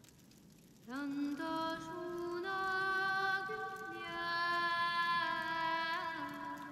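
A woman's voice singing slow, long held notes, entering about a second in with an upward slide, then stepping between a few pitches and wavering briefly near the end.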